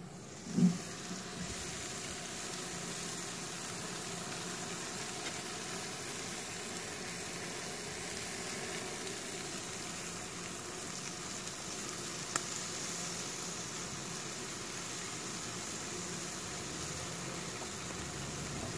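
Whole flattened chickens sizzling on a barbecue grill: a steady, even hiss of fat and juices on the hot grates. A single loud thump comes about half a second in, with a faint click later on.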